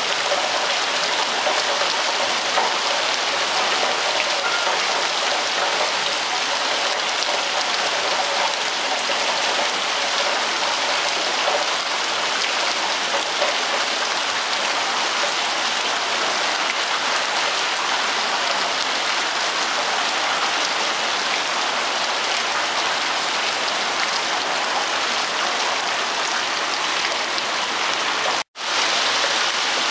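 Steady rain falling, an even hiss of drops spread across the highs and mids. It cuts out for an instant near the end.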